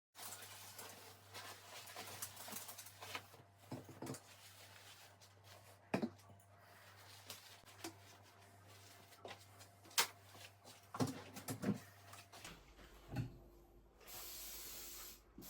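Household cleaning sounds: scattered light knocks and clicks of objects being moved and set down while a windowsill is wiped, over a low steady hum. Two sharper knocks stand out, about six and ten seconds in.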